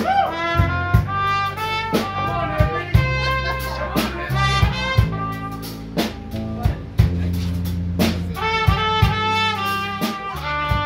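Live band playing: a trumpet plays a moving melody line over electric bass guitar and a drum kit.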